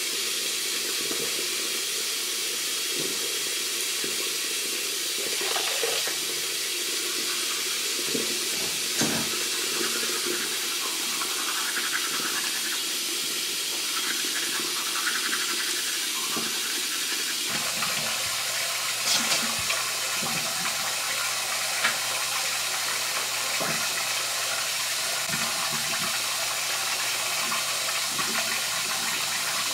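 Bathroom sink tap running steadily, a constant rushing hiss, with a few faint knocks and clicks. A low hum joins it a little past halfway.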